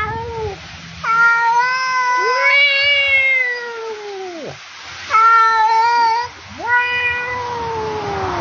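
Long, drawn-out meows in a run with short breaks, two of them overlapping at one point, each sliding down in pitch as it ends: a black cat and a man meowing back and forth at each other.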